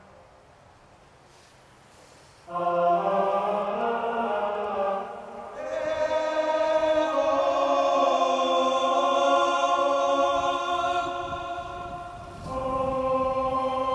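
Background music of sustained choir-like chords. It comes in about two and a half seconds in, after a near-quiet opening, and shifts to new held chords twice.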